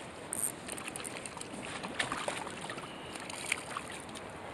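River current flowing in a steady hiss, with scattered short splashes and ticks from a hooked trout at the surface near the bank; the sharpest come about two seconds in and again about three and a half seconds in.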